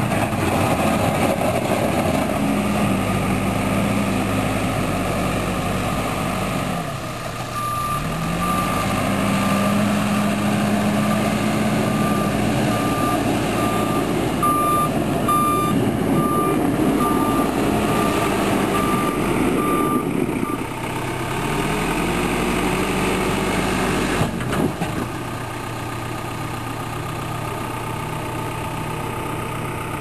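LiuGong 766 loader backhoe's 100 hp Perkins diesel running and revving as the machine works, with its reversing alarm beeping about once a second from about a quarter of the way in until about two thirds through. A single knock comes near the end.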